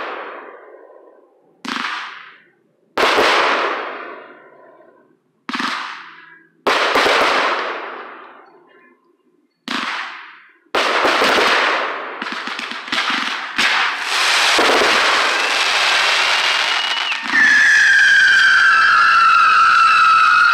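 Consumer fireworks going off: about six separate sharp bangs, each trailing off over about a second, then a quicker run of overlapping bangs. In the last few seconds a loud whistling firework shrieks in, a high whistle that drops slightly in pitch and then holds.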